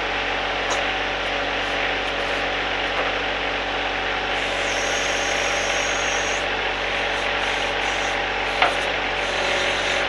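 John Deere 1025R subcompact tractor's three-cylinder diesel engine running steadily. A single sharp click near the end.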